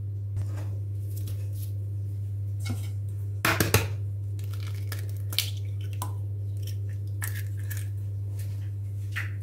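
Several sharp taps about three and a half seconds in as an egg is knocked against the rim of a stainless-steel mixing bowl, with a few scattered light clinks from the bowl and spoon. A steady low hum runs underneath throughout.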